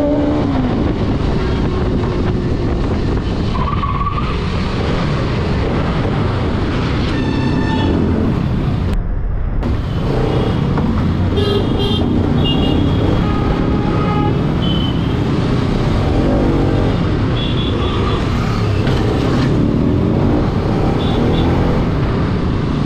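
Motorcycle riding through heavy city traffic: steady engine and road rumble, with vehicle horns tooting several times.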